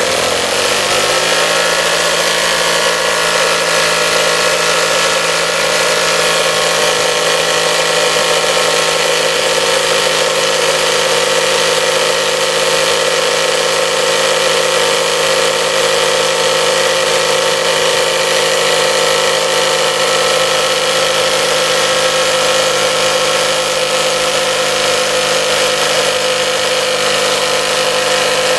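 DM 1 model twin-cylinder steam engine running fast and turning a small dynamo through its flywheel, a steady mechanical whir. Its pitch climbs over the first couple of seconds as more steam is let in at the valve, then holds steady.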